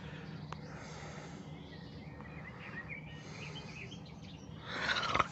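Quiet background noise: a steady low hum, with a few faint high chirps midway and a brief hiss near the end.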